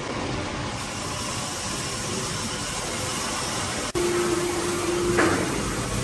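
Steady machinery noise in a sawmill shed where an overhead crane is carrying a log. About four seconds in the sound breaks off for an instant, then a steady whine holds for about a second and ends with a short sharp knock.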